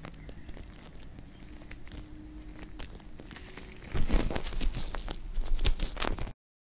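Textured rubber-gloved fingers rubbing and crinkling against a scooter's wiring harness, with small clicks and scrapes. About four seconds in, the handling noise gets much louder and rougher as the wires are pressed close to the microphone, then it cuts off abruptly.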